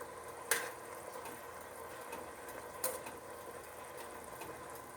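Shrimp frying in melted butter in a pan, a faint steady sizzle, with two sharp clicks, about half a second in and just before three seconds in.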